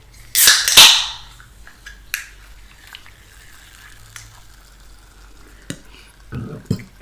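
A sharp crackling burst in two quick pulses about half a second in, from food or packaging handled close to the microphone, then faint scattered clicks of eating and handling.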